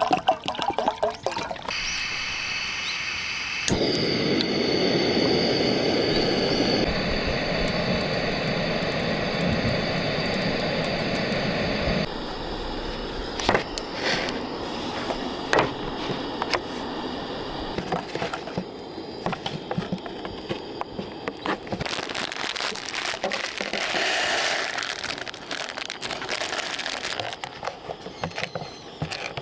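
Water poured from a plastic bottle into a stainless kettle on a camping gas stove, followed by several seconds of steady hiss. Later come light taps and crinkling as the paper lid of an instant-noodle cup is peeled back, with a couple of sharp clicks.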